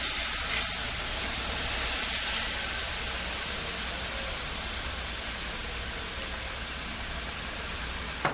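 Hot milk poured into a hot butter-and-flour roux in a frying pan, sizzling with a loud steady hiss that swells over the first couple of seconds and then slowly eases off.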